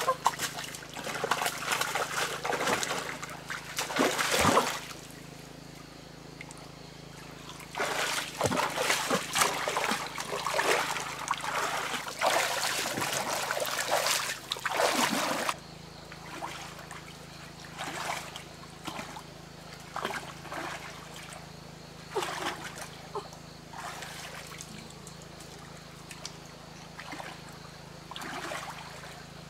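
Shallow stream water splashing and sloshing in irregular bursts as hands grope through it to catch fish. The splashing is long and dense in the first half, then comes as shorter, separate splashes.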